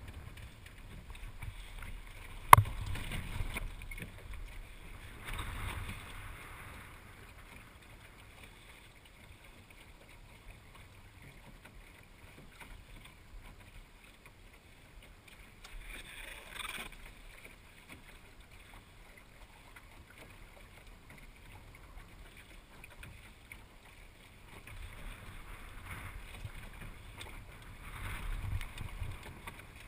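Water washing along a small sailing dinghy's hull under sail, with gusts of wind on the microphone that swell and fade several times. A single sharp knock comes about two and a half seconds in.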